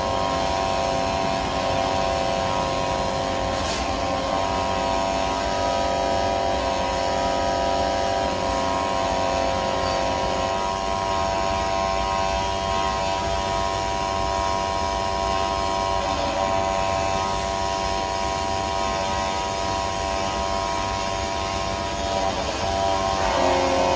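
AC TIG welding arc on aluminium, giving a steady buzzing hum over a constant hiss.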